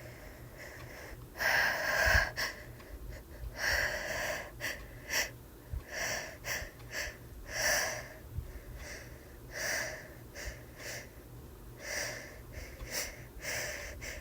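A woman's short, hitching gasps, repeated irregularly: the catching breaths of a sneeze build-up during a cold.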